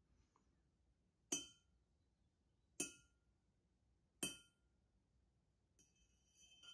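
A spoon clinking three times against a glass mason jar, each a sharp strike with a short bright ring, about a second and a half apart.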